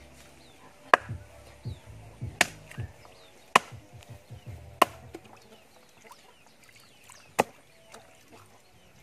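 Machete chopping raw chicken on a wooden block: about five sharp chops at uneven intervals, the blade cutting through the meat into the wood, with a few lighter taps between them.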